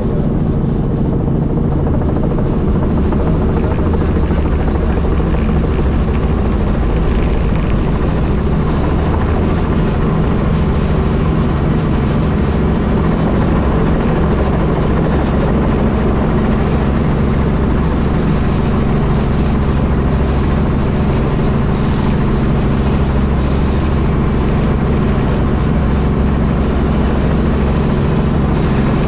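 Helicopter running steadily in flight: a loud, constant drone with a rapid low beat from the rotor.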